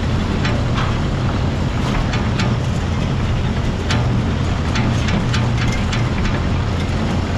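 Small old farm tractor's engine running steadily while raking hay, with scattered sharp ticks and rattles over it.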